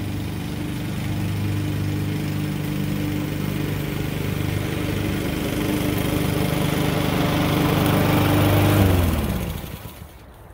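Honda walk-behind lawn mower engine running steadily under mowing load, growing louder as the mower comes closer. About nine seconds in, the engine is shut off and winds down with a falling pitch.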